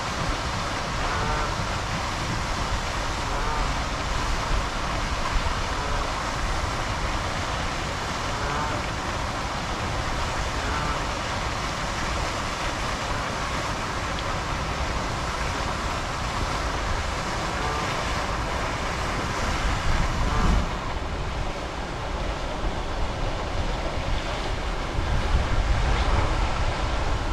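Steady outdoor rushing noise with no clear single event, and wind buffeting the microphone about twenty seconds in and again near the end.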